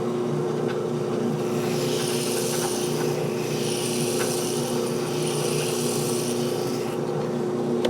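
Drill press running steadily with a constant motor hum, spinning a ball-type flex hone used to hone out a tappet guide block bore.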